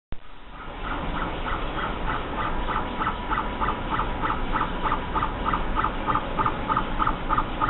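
Small motor buzzing in short, regular pulses, about four a second, over a steady high hum.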